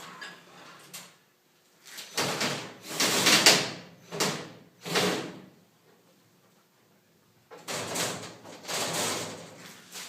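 Steel panels of a sandblasting cabinet being shifted and handled during assembly: several scraping, sliding rushes. The first group comes about two seconds in and is the loudest, and a second group comes near the end.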